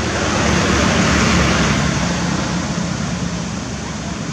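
Loud rushing background noise with no distinct events, swelling about a second in and then slowly easing off.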